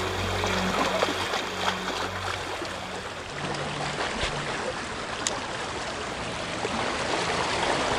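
Shallow sea water lapping and washing over rocks at the shoreline, a steady rushing wash.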